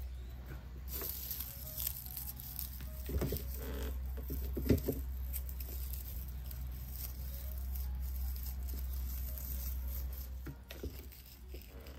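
Dried Japanese cedar sprigs and dried flowers rustling and crackling as they are handled and pushed into a small wreath, with scattered light clicks, the sharpest about five seconds in. A steady low hum runs underneath.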